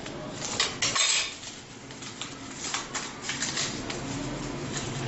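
Clinking and clattering of metal kitchen items, with a cluster of sharp knocks about a second in and several more clinks around three seconds in.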